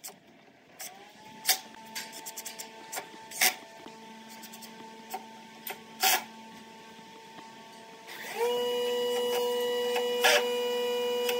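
Cordless impact driver driving screws into a pine frame: a steady buzzing whine that starts quietly about a second in and turns much louder about eight seconds in as the screw is driven, with a few sharp clicks in between.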